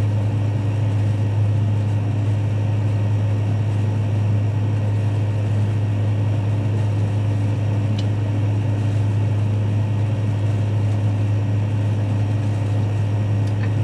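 Steady mechanical hum with a strong low tone, from a cooling unit running in the boat's cabin.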